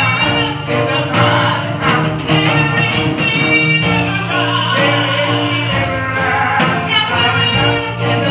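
Live gospel praise music: a church praise team singing with instrumental accompaniment, with held notes and a steady bass line.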